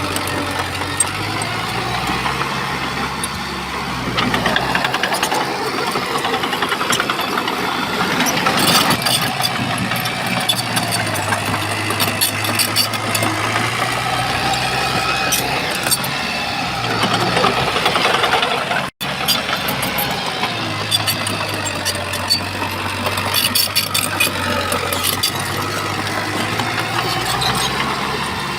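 Shantui bulldozer's diesel engine running under load, its pitch rising and falling as it works, with scattered clanks and rattles. The sound cuts out for an instant about nineteen seconds in.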